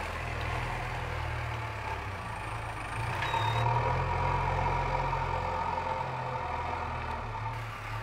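JCB 3DX backhoe loader's diesel engine running under load, getting louder about three seconds in as the machine drives its full front bucket forward and lifts the loader arm, with a steady higher whine over the engine drone for a few seconds.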